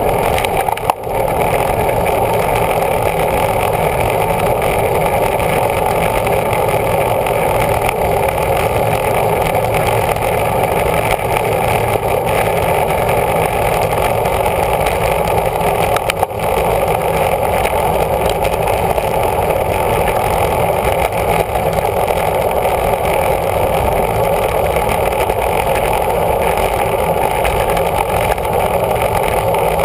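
Wind rushing over the microphone of a camera on a road bicycle riding at about 20 to 25 mph. It is a loud, steady, dull rushing noise with a low rumble beneath, and it dips briefly about a second in and again about 16 seconds in.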